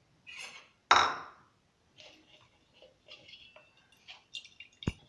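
A steel spoon knocking and scraping in a plastic strainer over a steel pot as soaked, mashed tamarind pulp is worked through it. One loud knock about a second in, then lighter clinks and scrapes, and a sharp click near the end.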